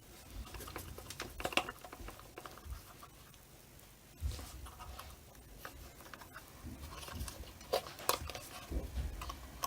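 Scattered small clicks, scrapes and rustles of wires and a yellow grommet being worked through a drilled hole in a plastic headlight cap with pliers.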